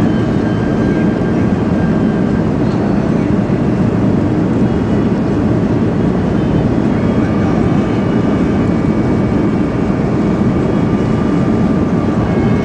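Boeing 737-400 in flight, its CFM56 jet engines and the airflow making a steady noise as heard inside the cabin, with faint high whines on top.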